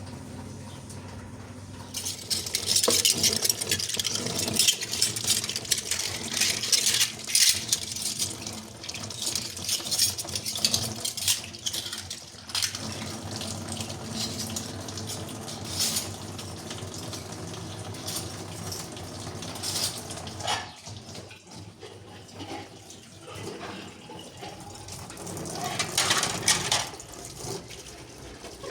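Water running in two spells, the first long and the second brief near the end, with many small clinks and knocks over a low hum.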